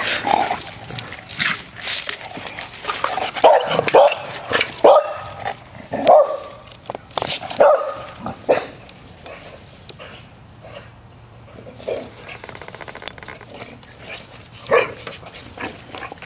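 Dog barking and yipping in short, sharp bursts, a quick run of them a few seconds in and one more near the end.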